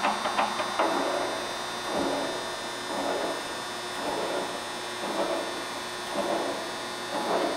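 Chevalier FSG-1228AD surface grinder running its automatic cycle with the spindle turning: a steady machine hum, a quick run of clicks in the first second, then swells in level roughly once a second as the table travels.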